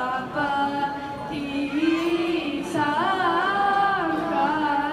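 Girls singing unaccompanied into handheld microphones, held notes with pitch bends and ornaments.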